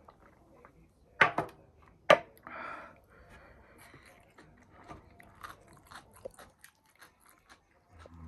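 Close-up crunchy chewing and biting of chatpate, a spicy puffed-rice snack. Two loud sharp crunches come about a second in and two seconds in, followed by a run of small crisp crunches.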